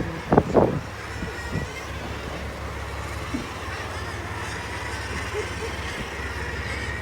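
A boat's inboard engine idling with a steady low hum, with two short loud knocks about half a second in.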